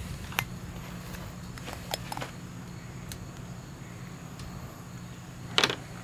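A steady low hum with a few faint handling clicks, then a louder knock near the end as a hand reaches in to handle the sauce bottle and utensils.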